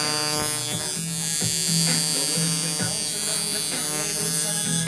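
Sunskin coil tattoo machine running, a steady electric buzz from its armature bar striking the contact screw many times a second.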